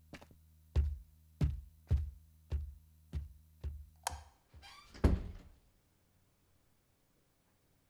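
Heavy, deep thuds repeating evenly about every half second over a low steady hum. About four seconds in comes a sharp click that rings briefly, then a scrape and one last, loudest thud, after which the hum stops and it goes nearly silent.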